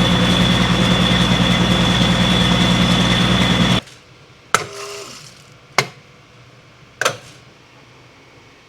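A vehicle engine runs steadily with a thin high whine over it, then cuts off abruptly about four seconds in. It is followed by three sharp knocks or clicks, spaced a little over a second apart, against quiet.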